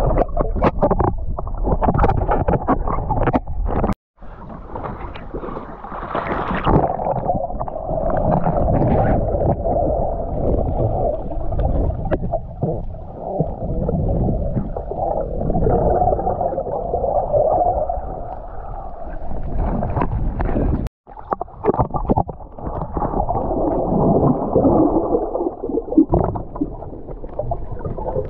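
Muffled underwater sound heard from inside a waterproof camera housing: water rushing and gurgling with a low rumble, dropping out abruptly twice.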